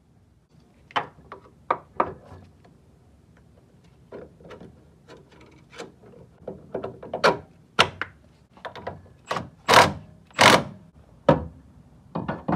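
Metal car suspension parts knocking and clunking as they are handled and fitted by hand: a front drop fork, control arm and ball joint. The sharp knocks come irregularly, with a few louder, longer clunks about ten seconds in.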